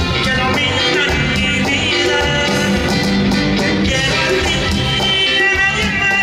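A Tejano band playing live and loud, with a singer over electric bass, electric guitar, drums and timbales.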